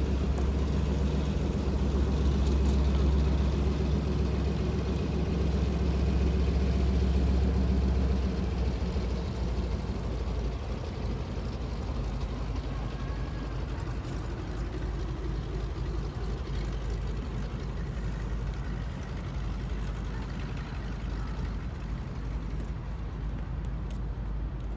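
Single-engine floatplane's engine and propeller running at steady taxiing power. The drone is loud at first and fades gradually after about eight seconds as the plane moves away across the water.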